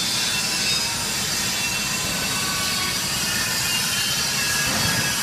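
240 V vacuum homogenizer mixer machine running under test: a steady mechanical whir and hiss with a few faint steady tones.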